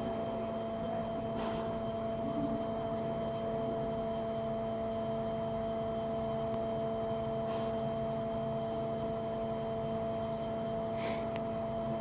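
Tilt table's drive running with a steady hum of several fixed tones as it slowly tilts a tracked vehicle further over; one short sharp click near the end.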